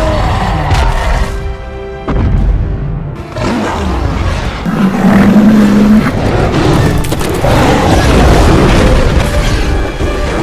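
Loud dramatic sound effects over music: deep booming rumbles and crashes, with a brief lull about two seconds in.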